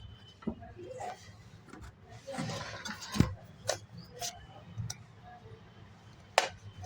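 Scattered sharp clicks and knocks of tools and metal or plastic parts being handled, with a brief scrape about two and a half seconds in and a louder click just after it.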